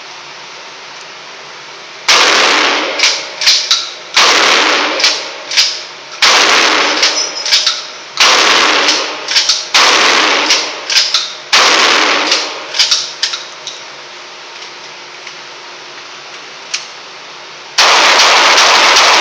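Six gunshots at a shooting range, fired at a steady pace of about one every two seconds, each with a sharp crack and a trailing echo. Near the end a loud steady rushing noise sets in.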